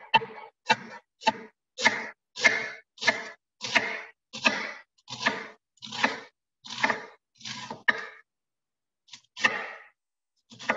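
Kitchen knife chopping napa cabbage on a wooden cutting board: a steady run of crisp chops, about one every half second or so, with a short pause near the end before two more.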